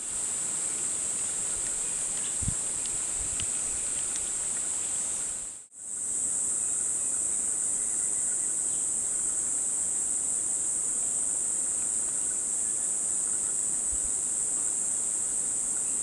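Insects droning steadily at a high pitch, cutting out briefly about six seconds in.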